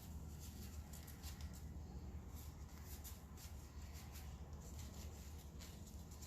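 Faint, light scraping and handling sounds, short scratchy ticks scattered throughout, over a steady low room hum.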